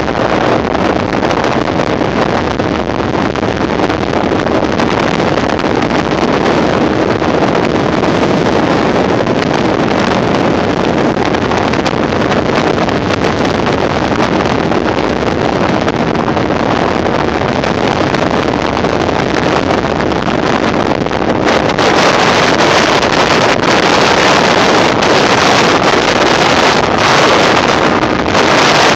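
Motorboat under way, its steady running noise mixed with heavy wind buffeting the microphone; the rush gets louder and hissier about three quarters of the way through.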